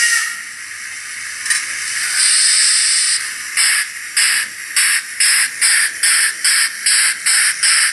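Uhlenbrock sound decoder in a Roco H0e HF 110 model steam locomotive, played through the model's small speaker: a steam hiss, then exhaust chuffs starting about three and a half seconds in at two to three a second, quickening slightly as the locomotive pulls away.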